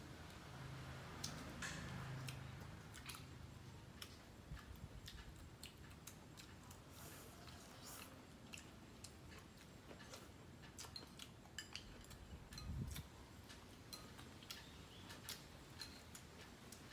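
Faint eating sounds: scattered small clicks of chopsticks against rice bowls and plates, with chewing. There is one low thud about three-quarters of the way through.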